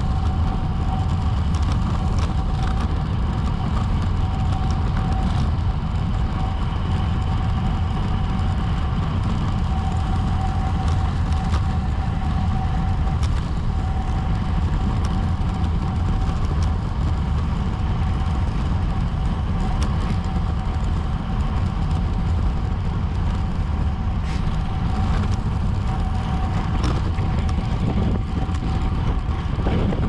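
Steady wind rumble on a bike-mounted action camera's microphone while a road bike is ridden at race speed. A faint steady whine and a few light clicks run under it.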